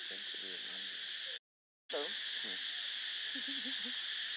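Steady high-pitched drone of insects, with faint voices of people talking underneath. The sound cuts out completely for about half a second a little over a second in, then the drone resumes.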